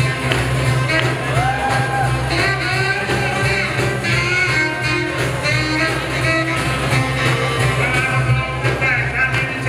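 Up-tempo boogie-woogie / rock and roll dance music with a singer, over a steady bass line.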